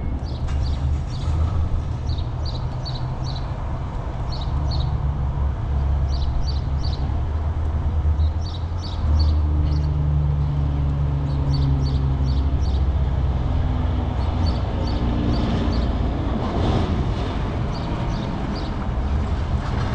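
Steady low vehicle rumble, with a small bird chirping in short high runs of three or four notes every second or two.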